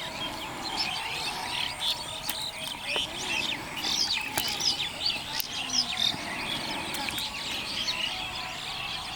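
Birds chirping, many short overlapping calls throughout, with occasional sharp clicks.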